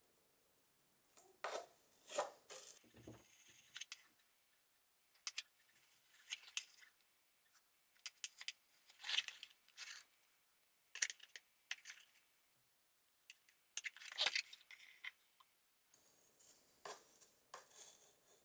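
Faint, irregular scratches and clicks of a soldering iron tip working a cracked polypropylene-and-glass-fibre air filter housing, tacking the crack edges together by pushing melted plastic across it.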